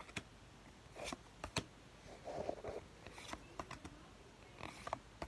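Trading cards being handled and slid from one to the next: scattered light clicks and taps of card stock, with a soft rustle about halfway through.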